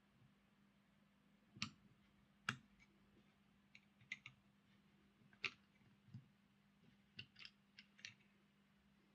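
Scattered small clicks and taps of small tools on a model locomotive's parts as it is taken apart on the bench, about a dozen spread over several seconds. A faint steady hum runs underneath.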